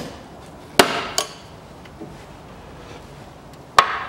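Metal tin of CVT fluid being opened: three sharp clicks and clanks from the tin and its cap, two close together about a second in and a louder one near the end.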